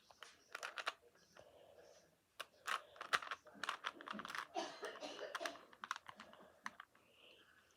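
Plastic 3x3 Rubik's cube being turned by hand: irregular runs of quick clicks and rattles as its layers snap round, busiest in the middle of the stretch.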